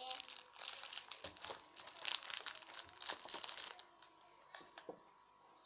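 Plastic Oreo packet crinkling as it is handled and opened: a dense run of crackles that thins out about four seconds in, followed by a few softer rustles.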